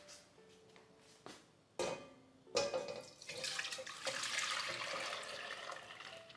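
Liquid agar-agar mixture poured from a stainless steel bowl into a stainless steel pot: a steady splashing pour lasting about three seconds, fading near the end. A couple of sharp knocks come just before the pour starts.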